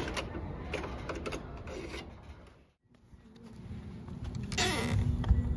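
Clicks and light plastic clatter from a boombox's cassette deck as the tape is ejected and lifted out. After a brief silence comes a low outdoor rumble and a short scraping swish as the wooden door of a little free library box is opened.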